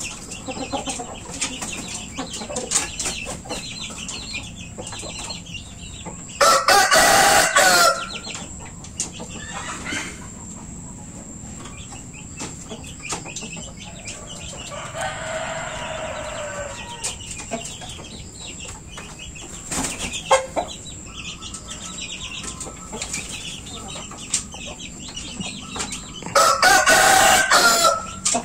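Bangkok game-fowl roosters crowing: a loud crow about six seconds in and another near the end, each about a second and a half long. Between them, chickens cluck in short calls, with a softer, more distant crow midway.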